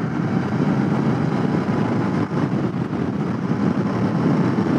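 Royal Enfield Continental GT 650's parallel-twin engine running steadily as the motorcycle is ridden at speed, blended with a steady rush of wind on the microphone.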